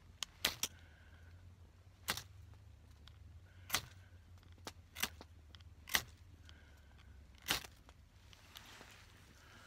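Hand-held fire starter being struck again and again to throw sparks onto a tuft of lint: about seven sharp scrapes, a second or so apart, until the lint catches about eight seconds in with a soft flare of noise.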